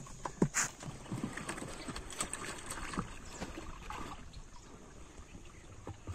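Irregular splashing and sloshing in shallow pond water, with a few sharp knocks, the loudest about half a second in.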